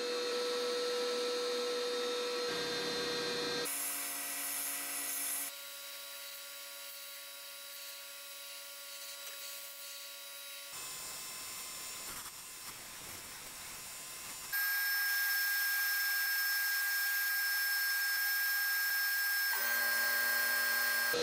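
Sandblast cabinet nozzle blasting rust and paint off bench-grinder parts: a steady hiss of compressed air and abrasive. It is heard in several clips cut together, the tone changing abruptly at each cut, with a quieter stretch in the middle.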